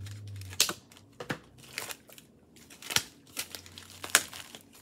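Rustling and crinkling of bagged comic books and papers being handled: a string of short, sharp crackles and taps at uneven intervals.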